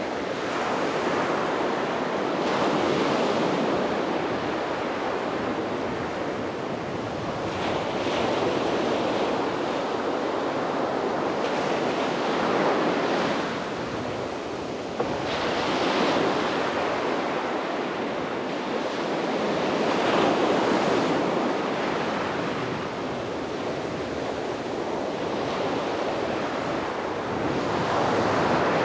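Sea waves breaking and washing on a beach, the surf swelling and easing every few seconds, with some wind on the microphone.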